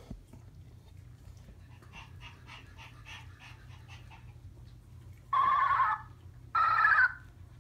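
A one-month-old Maltese puppy gives two loud, high, wavering cries, each under a second long and about a second apart, after a few seconds of faint quick sounds about five a second.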